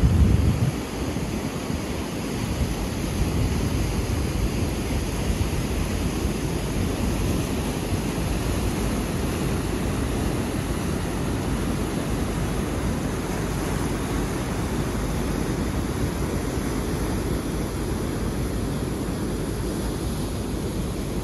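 Tiber river water rushing through rapids and over a low weir: a steady, full rush of white water. A short, louder low buffet at the very start, like wind on the microphone.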